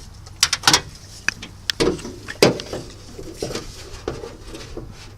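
Scattered sharp clicks and light metal knocks, several over a few seconds, from a car's hood being released and raised by hand.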